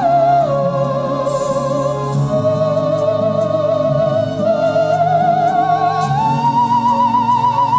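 Theremin playing a slow, singing melody in long held notes with wide vibrato, gliding between pitches: it drops just after the start and climbs to a higher held note about 6 s in. A lower accompaniment sounds underneath.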